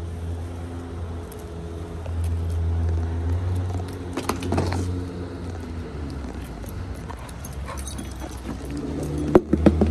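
Puppies playing with a drink bottle: scattered clicks with a brief clatter about four seconds in and sharp knocks near the end, over a steady low hum.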